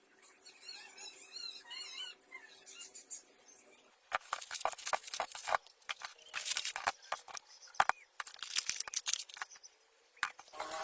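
Irregular sharp clicks and scrapes of hand work on metal parts, with a faint wavering squeak during the first two seconds.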